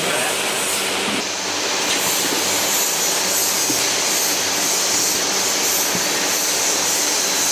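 Pneumatic paint-bucket filling and lidding machine running with a steady hiss of compressed air and mechanical noise. A higher hiss joins about a second in.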